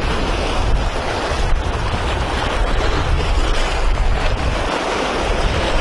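Wind buffeting the microphone: an uneven low rumble under a steady rushing hiss.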